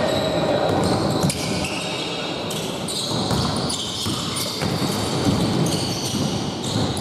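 Basketball game play in a gym hall: a ball bouncing on the court and players' voices, with many short high squeaks.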